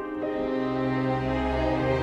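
Background music with sustained chords; a deep bass note comes in about half a second in.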